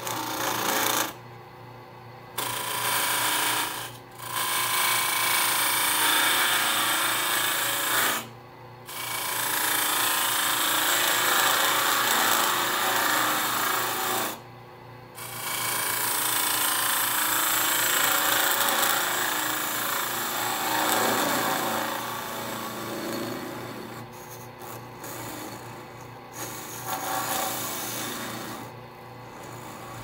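A hand turning tool cutting into the end of a spinning wooden box blank on a small benchtop wood lathe, hollowing it out: a steady scraping hiss of the cut, broken by several short pauses where the tool lifts off the wood. The lathe motor hums steadily underneath.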